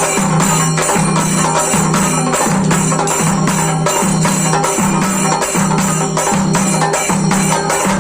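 Devotional music with a fast, steady percussion beat of about four or five strokes a second, jingling and clacking over a repeating low note.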